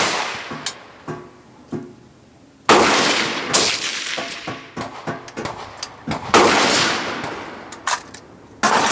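Gunshots on an outdoor range: three loud cracks, each followed by a long fading echo, with fainter sharp cracks between them.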